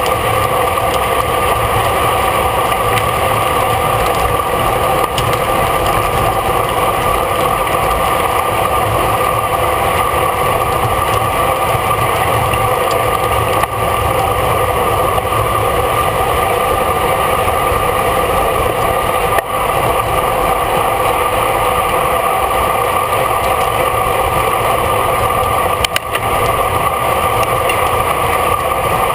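Steady wind and road noise from a camera riding on a racing bicycle at speed, with a constant hum running under it.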